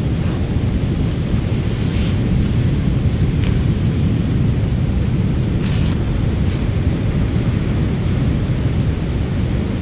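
Wind buffeting the microphone as a steady low rumble, with sea surf behind it. A few brief rustles of a rain jacket being pulled off come through the wind.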